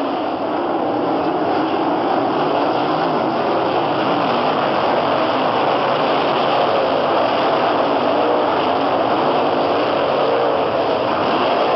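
A pack of non-winged dirt-track sprint cars racing past, their V8 engines running together in a loud, steady, unbroken din.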